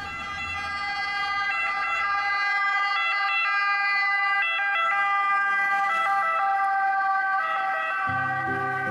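Ambulance siren sounding steadily, growing louder over the first couple of seconds. Low, soft music notes come in near the end.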